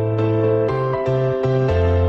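Calm background music of sustained chords over a bass line, which plays three short notes in the middle.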